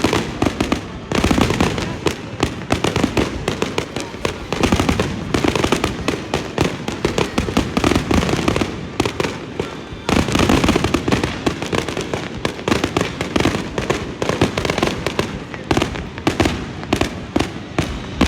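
Fireworks display: a dense, continuous barrage of rapid bangs and crackle, many reports a second. Heavier volleys start about a second in and again about ten seconds in.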